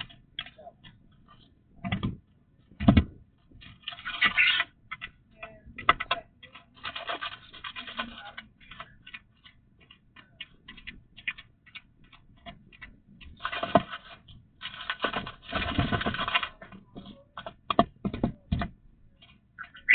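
Irregular taps, clicks and scratching, with a few dull knocks and short stretches of rustling, as things are handled close by.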